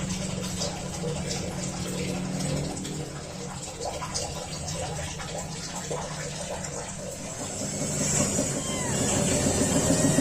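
Three-week-old kittens: a steady low rumble with scattered small rustling clicks, then a couple of faint, high, arched kitten mews near the end.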